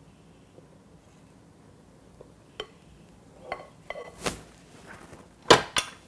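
Scattered clinks and knocks of a glass bowl and spatula against a stainless steel stand-mixer bowl as flour is tipped and scraped in, with two louder knocks near the end.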